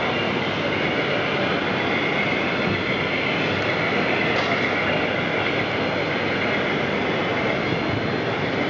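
Model trains running on an exhibition layout: a steady whirring, rumbling run of motors and wheels on track, mixed with the dense background noise of a busy exhibition hall.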